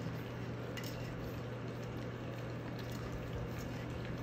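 Several puppies eating wet raw food from a stainless steel saucer pan: wet smacking and lapping with a few faint clicks, over a steady low hum.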